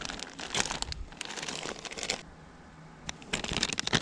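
Plastic soft-plastic lure packets crinkling as they are handled and pulled open, in two spells with a short pause a little past halfway.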